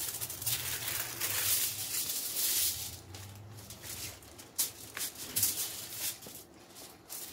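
Aluminium foil being pulled off its roll and crinkled as it is spread flat, a rustling hiss for the first few seconds, then a few sharp crackles and taps as the foil is handled.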